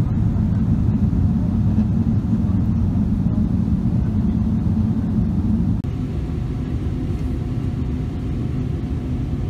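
Steady low drone of a jet airliner's engines heard from inside the cabin while it taxis at idle power. A bit after the middle the sound cuts abruptly to a slightly quieter drone of the same kind.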